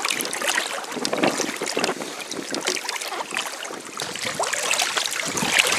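Choppy water lapping and slapping irregularly against an inflatable belly boat, with strong wind buffeting the microphone.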